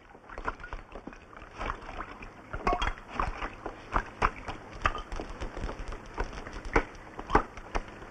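Water splashing and sloshing in a wooden tub as hands work in it, in irregular splashes and knocks, a few of them louder, about three, four, five, seven and seven and a half seconds in.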